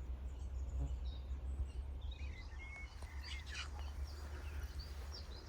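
Small birds chirping and twittering in short, scattered calls, busiest in the middle, over a steady low rumble.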